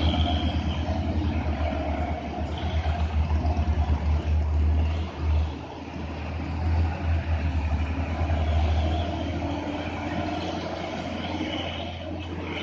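Heavy diesel truck engines pulling at low speed through a sharp bend, a deep pulsing rumble that eases to a steadier, quieter run near the end.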